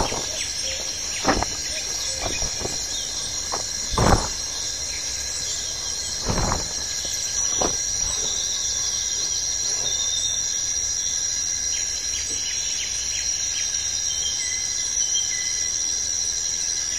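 Steady high-pitched drone of insects in a tropical forest, with a few sharp rustles and thumps as a plastic tarp is handled and hung over a ridge line; the loudest come about one, four and six and a half seconds in.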